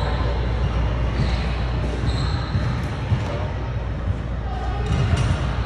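Basketballs bouncing on a hardwood gym floor, with indistinct voices in the background.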